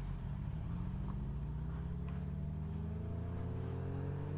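Suzuki GSX-R sportbike engine pulling under steady acceleration, its note rising slowly and evenly in pitch.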